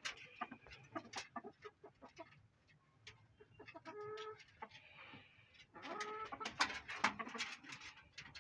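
Domestic hen clucking, with short sharp clicks scattered throughout and two longer pitched calls, about four and six seconds in.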